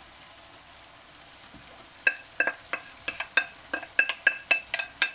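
Wooden spoon knocking the last rice noodles off a ceramic plate into a wok: a quick run of about a dozen sharp clacks, each with a brief ringing tone of the plate, starting about two seconds in at roughly four a second. A faint sizzle of the wok lies under it.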